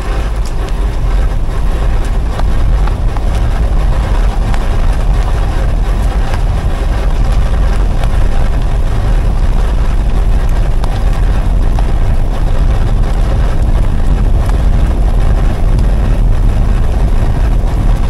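Steady tyre and wind noise on a microphone mounted by the rear wheel of a slowly rolling BMW F15 X5 40e plug-in hybrid, with a heavy low rumble. Under it is the soft rear grinding that the owner has chased for months. New brake pads, discs, shoes and both rear wheel hubs have not cured it, and he suspects the electronic parking brake.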